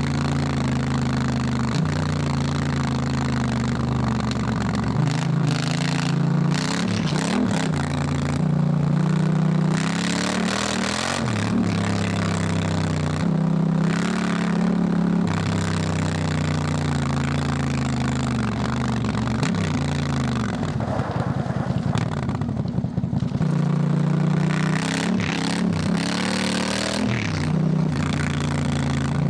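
Honda Africa Twin's parallel-twin engine pulling hard while riding, its pitch climbing and then dropping back step by step as it shifts up through the gears, over and over.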